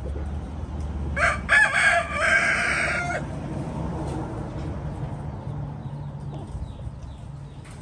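A rooster crowing once, about a second in, a single call lasting about two seconds.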